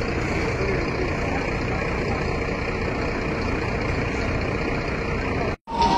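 A heavy vehicle engine running steadily under a wash of noise. Near the end the sound cuts out for a moment and a slowly rising siren begins.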